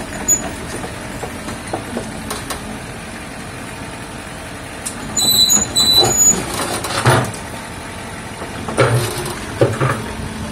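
Mini excavator's diesel engine running steadily, with short high-pitched squeaks about five seconds in and louder rough bursts of machine noise around seven and nine seconds as the machine works on the truck bed.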